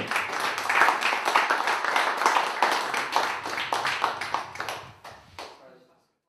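Audience applauding, dense overlapping claps that fade out near the end.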